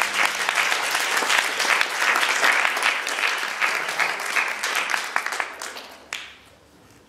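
Audience clapping, thinning out and stopping about six seconds in, with a single sharp knock as it ends.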